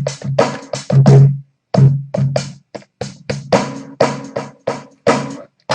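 Slices of a sampled drum break played through Native Instruments Maschine: kick, snare and cymbal hits in a quick, uneven run, broken by a couple of brief silent gaps.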